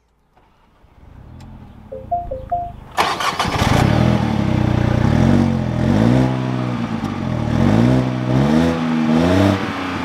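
2023 Mini Cooper Convertible's 1.5-litre turbocharged three-cylinder engine being started: a short run of rising tones, then the engine catches about three seconds in and settles into running. It is then revved several times, the pitch climbing and falling with each blip.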